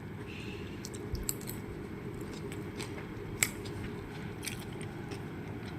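Quiet eating sounds: chewing with a few small, sharp clicks, the sharpest about three and a half seconds in.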